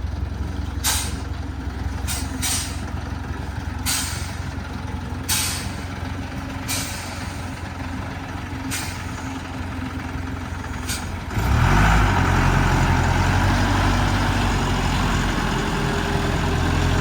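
Loaded truck's engine idling, with a scatter of short sharp noises over it. About eleven seconds in the engine revs up and holds at a higher, louder pitch.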